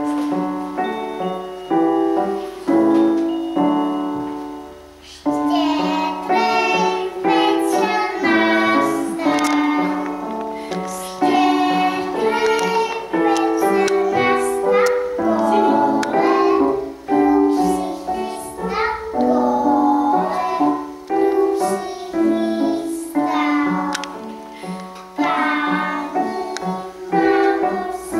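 A children's song with piano accompaniment: the piano plays alone for about the first five seconds, then young children's voices come in singing along.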